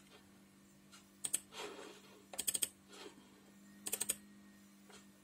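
Clicking at a computer: three quick clusters of several clicks each, about a second and a half apart, over a faint steady hum.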